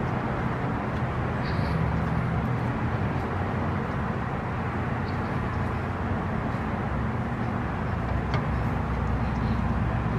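Steady outdoor background rumble and hiss, with a few faint clicks.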